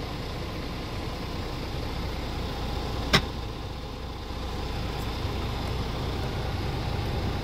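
Scania R490's 13-litre straight-six diesel idling steadily, heard from inside the cab, with one sharp click about three seconds in.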